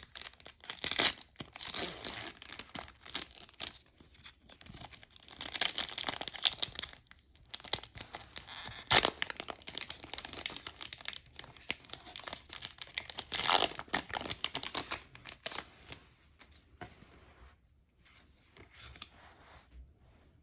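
A Pokémon booster pack's foil wrapper being torn open and crinkled in irregular bursts, dying down to faint handling a few seconds before the end.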